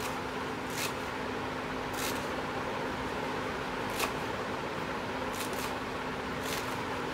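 Kitchen knife chopping fresh coriander on a round wooden chopping board: about half a dozen irregularly spaced blade strikes against the wood, over a steady background hum.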